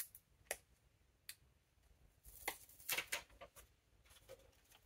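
Faint handling of a stiff paper sticker on a ring-planner page: a few light clicks and rustles, bunched together around the middle, as the sticker is handled and pressed down.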